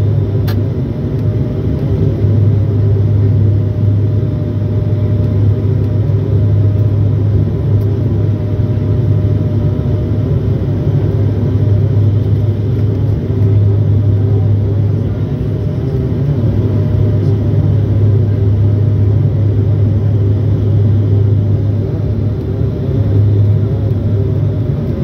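Cabin noise inside a Dash 8 Q400 turboprop airliner on final approach with the gear down. The six-bladed propellers make a loud, steady low drone that slowly swells and fades, over a rush of airflow.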